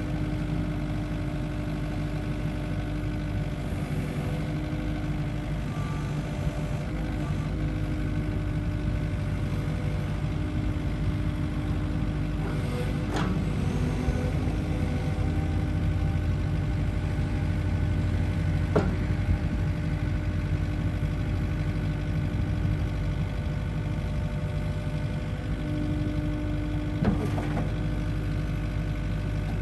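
Kubota KX080-4 excavator's four-cylinder diesel engine running steadily while the boom and bucket are worked, with steady tones that come and go over the drone. A few sharp knocks stand out, about a third of the way in, near the middle, and near the end.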